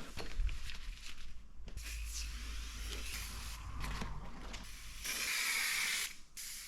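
Aerosol can of silicone spray hissing in several bursts, the longest about a second near the end, as lubricant is applied for mounting a motorcycle tire.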